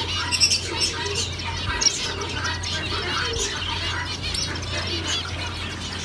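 A flock of caged zebra finches calling together, a dense, continuous chatter of short nasal beeps and chirps, over a steady low hum.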